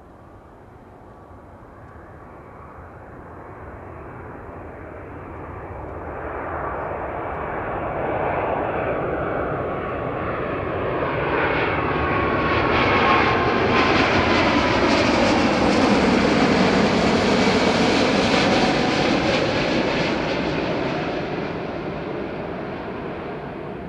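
Twin-engine Boeing 777-300 jet airliner on landing approach passing low overhead. The engine noise builds steadily to its loudest about two-thirds of the way in, then fades. Whining tones fall in pitch as it goes by.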